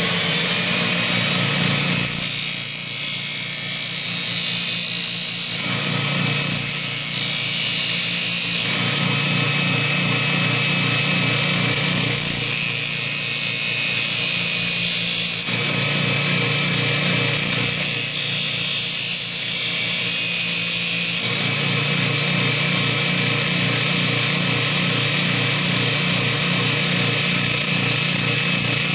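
Baldor 1/2 hp grinder running a 100-grit sanding belt over a 10-inch expander wheel, with a steady motor whine. The grinding sound changes in several stretches as the steel fuller is worked back and forth against the belt.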